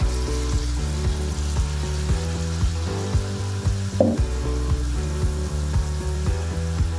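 Pinkaso dough (yeasted flour fritters) deep-frying in hot oil in a pan, with a steady sizzle as fresh dough goes in. Background music with a steady beat plays underneath.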